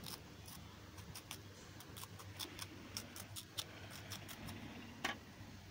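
Scissors snipping through banana leaf, trimming the rim of a leaf cup: a series of faint, crisp snips, with one louder snip near the end.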